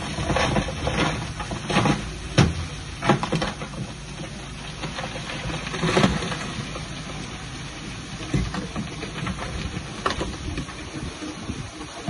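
Bulldozer engine running under a steady low rumble, with scattered sharp knocks and clanks, several in the first few seconds and a few more later.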